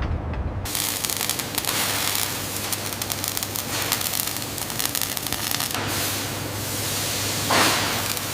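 A steady loud hiss that starts about half a second in, swelling briefly louder near the end.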